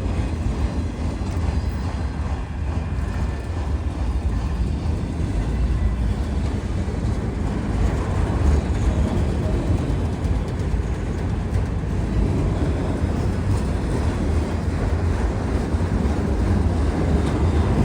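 Freight train cars rolling past: a steady rumble of steel wheels on the rails with faint repeated clicks.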